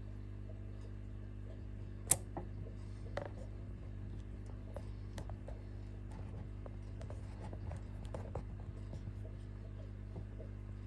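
Faint, scattered scratching and ticking over a steady low hum, with one sharp click about two seconds in.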